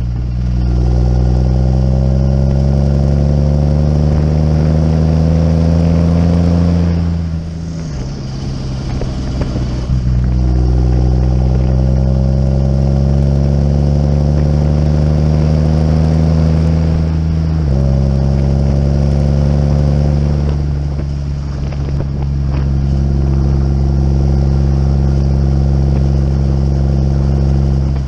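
Tractor's diesel engine pulling a loaded muck trailer along a road, its pitch climbing steadily as it accelerates, dropping sharply at gear changes about seven and seventeen seconds in, then running steadily near the end.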